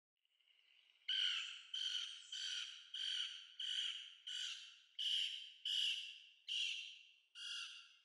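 Lewis's woodpecker giving a series of about ten short, harsh churr calls, evenly spaced a little over half a second apart, starting about a second in.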